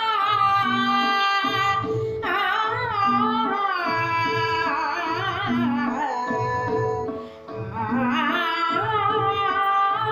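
A woman singing a Kannada devotional song in Carnatic style, her voice sliding and wavering through ornamented notes, over a steadily repeating low accompaniment beat. Her voice breaks off briefly about seven seconds in, then resumes.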